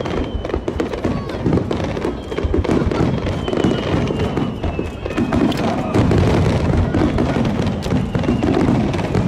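Aerial fireworks bursting and crackling in a dense barrage of rapid pops and cracks, over crowd voices and background music.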